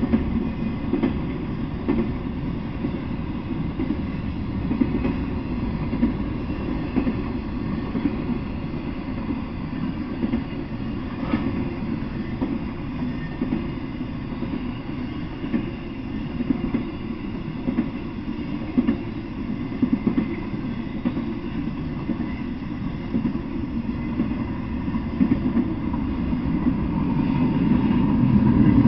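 Intermodal freight train rolling past: a steady rumble of wheels on rail with scattered clacks, growing louder over the last few seconds.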